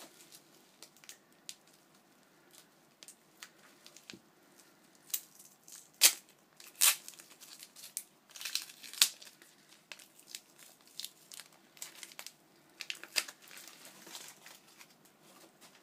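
Packaging crinkling and rustling as items are handled and unwrapped, a run of irregular sharp crackles, loudest from about five to nine seconds in.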